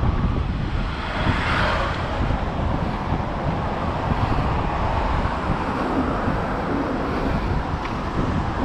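Wind buffeting the microphone of a camera on a moving bicycle, a steady low rumble, with cars passing on the road alongside, one swelling by about a second in.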